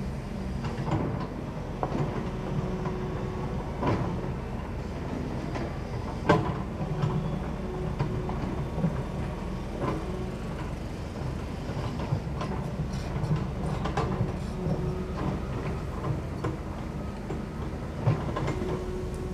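Long-reach excavator's diesel engine running steadily, with a hydraulic whine that comes and goes as the boom and bucket move. Irregular clanks and knocks from the steel bucket digging and scraping in rocky mud, the loudest about six seconds in and another near the end.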